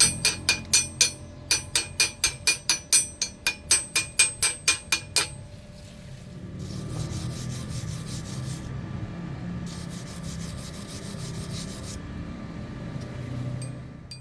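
Rapid hammer strikes on steel, about four a second, each one ringing briefly and stopping after about five seconds. Then come two stretches of harsh scraping against metal, a few seconds each.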